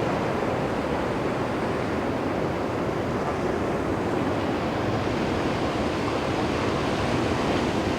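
Sea surf washing steadily: an even, unbroken rush of noise with no distinct breaks.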